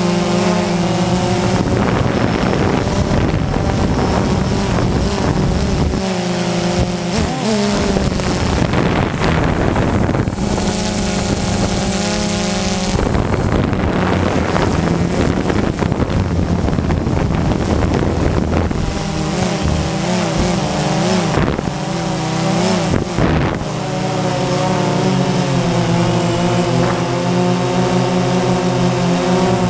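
Quadcopter drone's electric motors and propellers buzzing, several pitches wavering and shifting as the motors change speed, over a rush of wind noise on the microphone.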